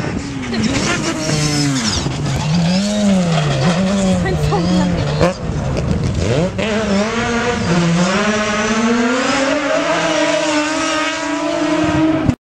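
Mazda RX-7 rally car's rotary engine at full stage pace on gravel, its pitch swinging up and down several times through the bends, then climbing steadily for several seconds under acceleration before cutting off suddenly.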